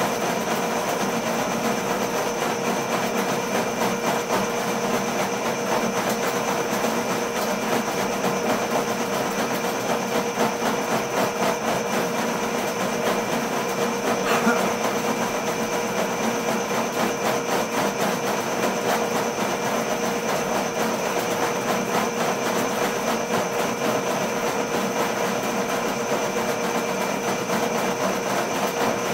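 Ridgid K-50 sectional drain machine running steadily: a steady motor hum with a fast rattle from the spinning cable as it snakes a blocked drain.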